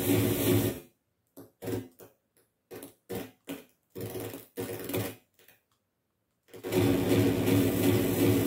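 Glitchy electronic noise music generated live in the frakMSP software suite. A dense, buzzing texture with a low hum cuts out just under a second in and breaks into about a dozen short stuttering fragments. After a second of silence the full texture returns abruptly near the end.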